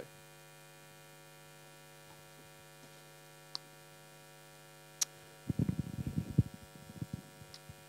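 Faint steady electrical mains hum in the sound system during a pause in the talk. A sharp click comes about five seconds in, followed by a couple of seconds of low, muffled bumps and rustle.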